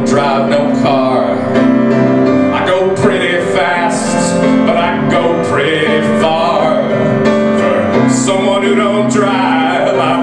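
A man singing with his own piano accompaniment, live; long sung lines over held piano chords.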